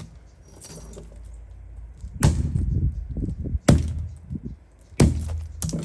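Hammer striking an Untimaty cordless drill three times, about a second and a half apart, with a rattle after the first blow; the drill holds up.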